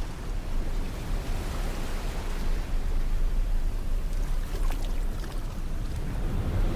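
Sea surf washing on a beach: a continuous rushing noise with a deep low rumble, swelling and easing slightly.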